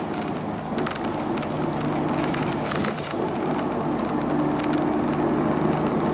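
Interior running sound of an Isuzu Erga PJ-LV234L1 non-step city bus under way: the steady drone of its diesel engine and road noise, with frequent light clicks and rattles from the cabin.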